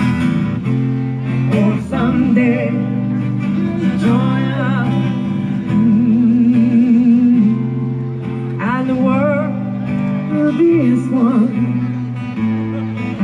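Live acoustic music: guitar playing held chords under a singer's melody, sung with vibrato.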